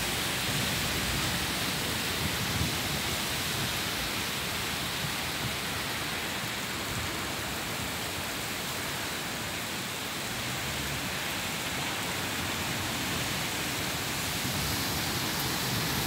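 Thunderstorm with heavy rain and strong wind: a steady, even rushing hiss that does not let up.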